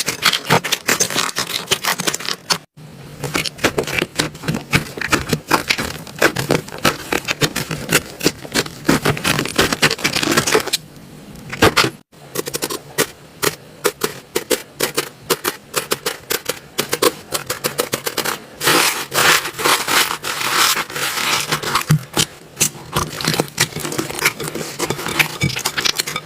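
Slime being played with, giving dense crackling and popping clicks, with brief breaks about 3 and 12 seconds in.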